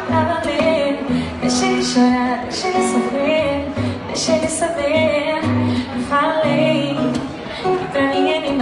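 A woman singing a Brazilian pop song live into a microphone, with an acoustic guitar playing along, amplified through a PA.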